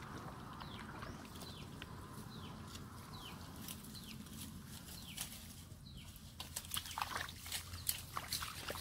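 Wet mud squelching and shallow water sloshing under bare feet and hands, with a cluster of sharper wet squelches and clicks in the last couple of seconds.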